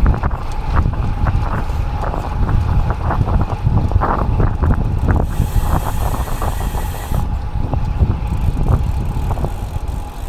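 Wind buffeting the action camera's microphone and road noise from a road bike being ridden, with scattered irregular clicks and knocks.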